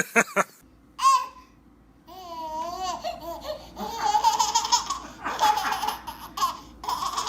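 A baby laughing and babbling: a few wavering vocal sounds, then choppy bursts of laughter through the second half.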